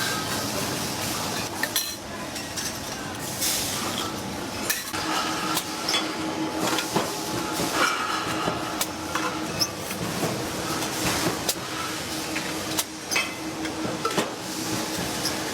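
Factory machinery running, with frequent sharp metallic clinks and knocks over a steady mechanical noise; a steady hum joins about five seconds in.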